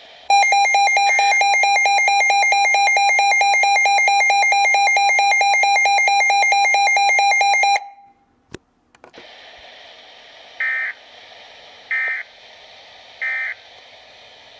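A weather alert radio's alarm: a harsh, rapidly pulsing electronic tone for about seven and a half seconds that cuts off, followed by a click. Then the radio broadcast comes through as a faint hiss with three short digital code bursts about a second and a quarter apart, the SAME data tones of a weather alert.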